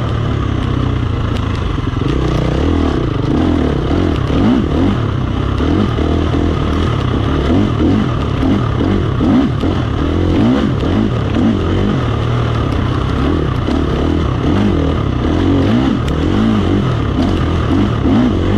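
KTM 350 XC-F dirt bike's single-cylinder four-stroke engine running under load while being ridden, its revs rising and falling constantly as the throttle is worked.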